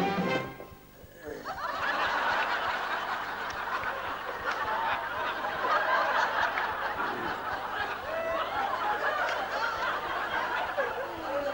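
A studio audience laughing at length, swelling up about a second and a half in and staying strong throughout. A brass band chord cuts off at the very start.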